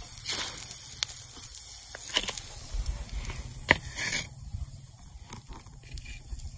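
Food frying in shea butter on a hot stone slab, sizzling, with light clicks of a wooden spatula. There is one sharp knock a little past halfway, and the sizzle is fainter after it.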